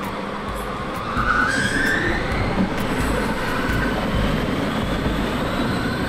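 Power Wheels ride-on toy car driving on a 20-volt battery: its electric drive motors and plastic gearboxes whine, with the plastic wheels rolling over wet pavement. The whine rises in pitch about a second in as the car speeds up.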